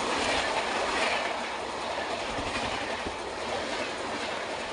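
Superfast express train's passenger coaches running through a station at speed without stopping: a steady rush of wheel and air noise, with wheels clicking over rail joints.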